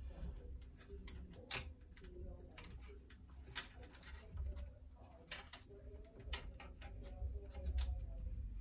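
Faint, irregular clicks and ticks of small plastic PC fan-cable connectors and wiring being handled and pushed together, over a low rumble.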